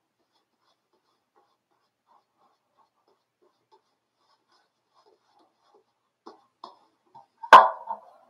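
Faint brushing of a shaving brush working lather on the face, then a few small clicks and one loud sharp clack about seven and a half seconds in as shaving gear is set down and handled on a hard bathroom counter.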